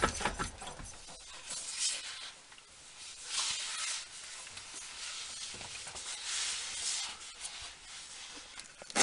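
Rapid, even knocking, about five a second, from a Dana 44 front axle, dying away in the first second. Faint hissing comes and goes after it.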